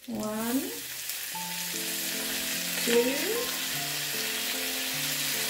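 Crispy pork sizzling in a hot wok as soy sauce is poured in. The sizzle jumps up sharply right at the start, then holds steady.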